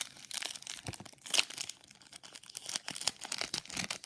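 Foil Yu-Gi-Oh booster pack wrapper crinkling and being torn open by hand: a run of irregular crackles, with a louder one about a second and a half in.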